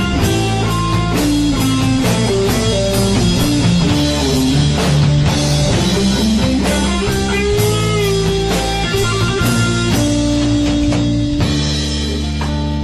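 Instrumental break of a rock song: a guitar melody over a steady drum kit beat, with no vocals.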